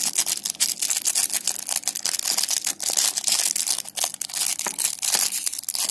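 Plastic packaging crinkling and crackling as it is handled and torn open, a dense run of fast, sharp crackles.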